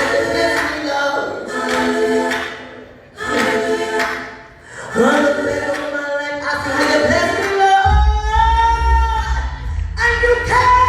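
Gospel singing by a group of voices, at first with little or no accompaniment, in phrases with short breaths between them. A deep, steady bass comes in under the voices about eight seconds in.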